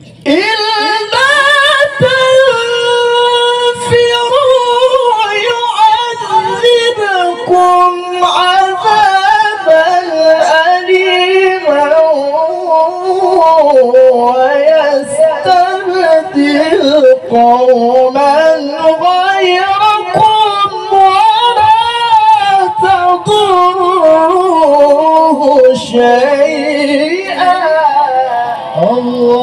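Male qari chanting Quran recitation (tilawah) in one long, high, ornamented melismatic phrase into a handheld microphone. The pitch sweeps up at the start, winds through rapid wavering turns, and drops lower near the end.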